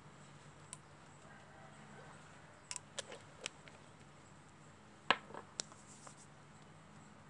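Faint room tone with a low steady hum, broken by a few light taps and clicks: hands working facial serum onto the skin. There is a cluster of taps about three seconds in, and the sharpest tap comes about five seconds in.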